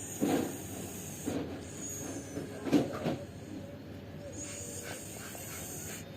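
Domestic cat snoring in its sleep, with three snores in the first three seconds and softer ones after.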